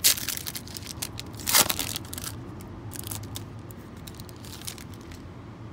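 Foil wrapper of a trading card pack being torn open: two loud rips in the first two seconds, then lighter crinkling of the wrapper as the cards are pulled out.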